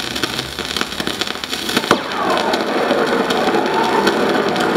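Dense crackle and clicks of surface noise from an old acetate disc being played, with one sharp, loud click about two seconds in. Faint wavering tones of the recorded programme sit underneath after the click.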